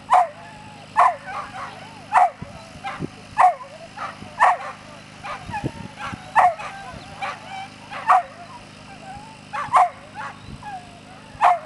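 A dog barking over and over, about one bark a second, with faint whining between the barks.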